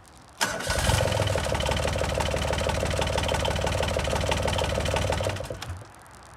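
The Yanmar diesel engine of a John Deere Gator turning over on the starter about half a second in and running for about five seconds with a fast even beat, then stopping with a couple of last sputters.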